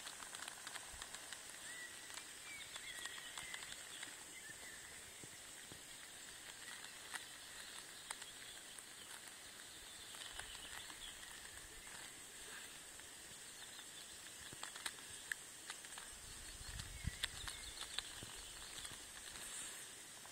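Quiet lakeshore ambience: small ripples lapping and clicking against the stones at the water's edge, with a few faint bird chirps over a steady high hiss. A brief low rumble of wind on the microphone comes in near the end.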